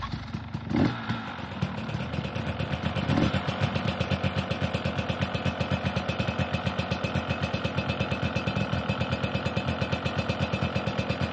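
KTM two-stroke dirt bike engine running at idle with a fast, even pulsing beat, after a couple of louder blips in the first three seconds.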